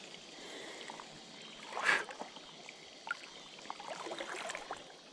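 Water splashing on a river surface: one sharp splash about two seconds in, then a run of smaller splashes and plops, as a Whopper Plopper topwater lure is fished across the water.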